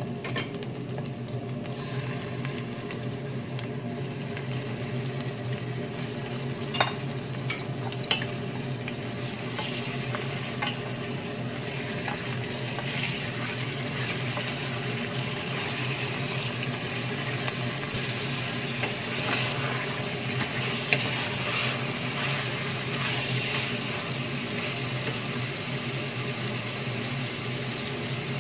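Diced onion and chunks of raw meat sizzling in a stainless steel pot while a wooden spoon stirs them, with a couple of sharp knocks about seven and eight seconds in. The sizzle grows louder in the second half.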